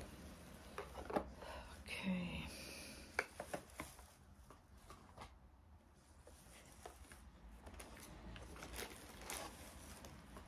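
Quiet crinkling and rustling of packaging, with scattered small clicks and taps as make-up products are handled and packed, more of them in the first few seconds.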